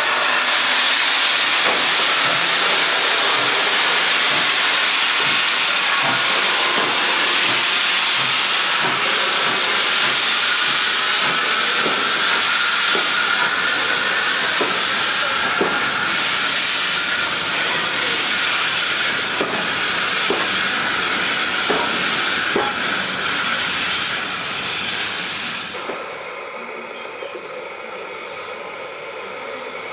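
SE&CR O1 class steam locomotive starting away with its cylinder drain cocks open: a loud, continuous hiss of escaping steam, with faint knocks about once a second as it moves off. The hiss cuts off suddenly about 26 seconds in, leaving a quieter steady background.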